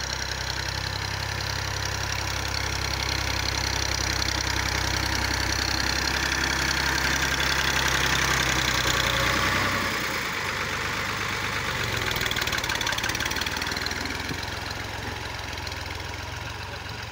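Fiat 480 tractor's diesel engine running under load as it pushes soil with a front dozer blade. It grows louder as the tractor comes close, about halfway through, then eases off.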